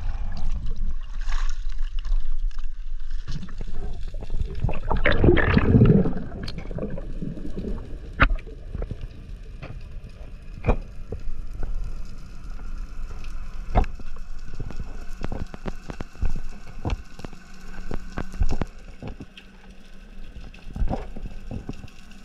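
Sea water sloshing around the camera at the surface, then a loud rush of splashing and bubbles about five seconds in as it goes under. After that, muffled underwater ambience with scattered sharp clicks and a faint steady hum.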